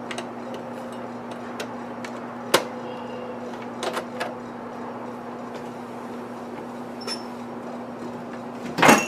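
Sharp plastic knocks and clicks as a light fitting is pushed and forced into an aquarium hood, with one louder clatter near the end, over a steady low hum.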